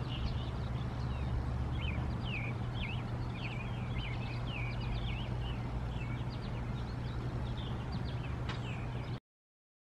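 Many birds chirping, a dense run of short, quick chirps, over a steady low hum. All sound stops abruptly about nine seconds in.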